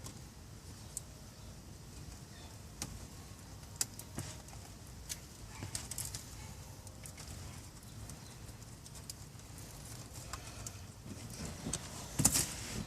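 Faint, irregular clicks and small knocks of hands handling wiring and tools under a dashboard, with a few louder clicks about four seconds in and near the end.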